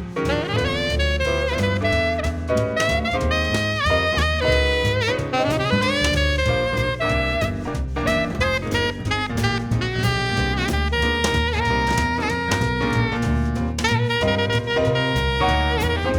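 Background jazz music with a saxophone lead over bass and drums.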